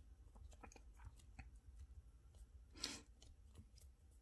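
Faint, near-silent handling of modeling clay: soft sticky clicks as the clay is stretched apart and folded over, with one brief louder rustle about three seconds in.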